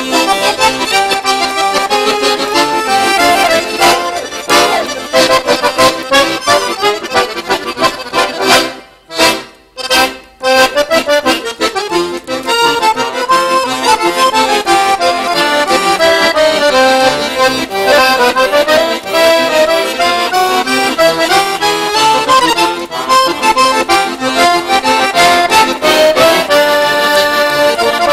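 Two piano accordions playing a lively duet together, with a short break of about a second roughly nine seconds in before the tune carries on.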